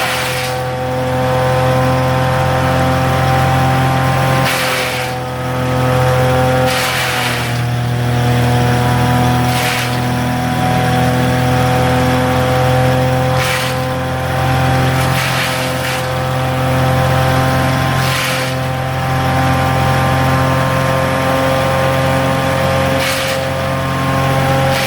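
Mitts and Merrill wood chipper running hard with its engine at raised RPM, a steady engine note under a whine. Every few seconds there is a short rush of chipping noise as wood goes through, and the engine pitch sags briefly twice.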